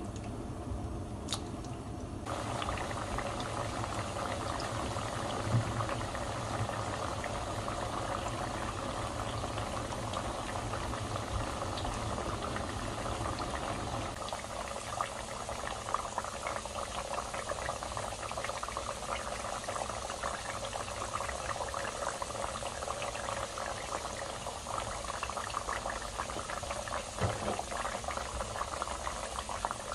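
Sweet potato slices deep-frying in hot oil in a wok: a steady sizzle and crackle of bubbling oil, growing much louder about two seconds in.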